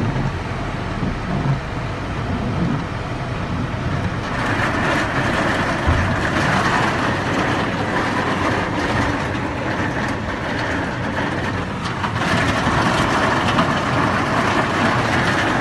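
Heavy hail and rain pelting the ground in a violent thunderstorm, a dense, unbroken din of small impacts with wind rumble underneath. It grows heavier about four seconds in.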